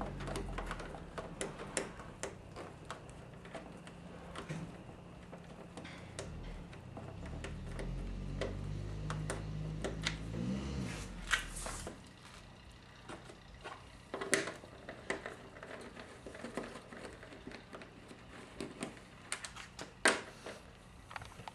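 Scattered clicks and knocks of hand tools and plastic and metal parts being handled while the headlight assembly is unbolted and lifted out. For about the first twelve seconds a low hum runs under them, rising briefly just before it stops.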